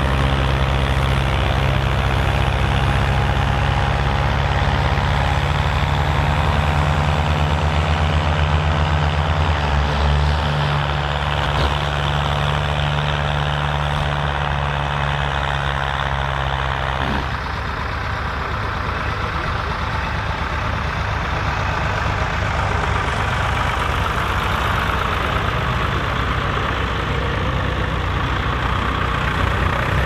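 Ford farm tractor engines working hard under load, pulling ploughs, as a steady low engine drone. About 17 seconds in the sound cuts abruptly to a lower, rougher tractor engine.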